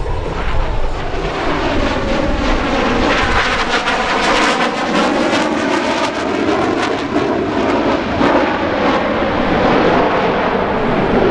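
A CF-18 Hornet fighter's twin General Electric F404 turbofan jets making a pass. The loud jet noise sweeps in pitch as the aircraft goes by, near its closest point about halfway through, and carries on as it moves away.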